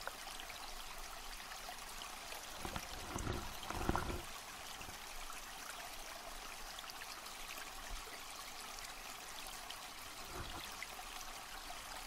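Steady rushing hiss of water heard through an underwater camera, with a few dull low bumps about three to four seconds in and again near ten seconds.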